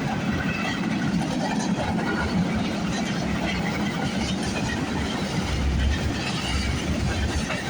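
Freight cars of a long CP freight train rolling past at speed: a steady rumble of steel wheels on the rails, with rapid clicking and clacking over the rail joints.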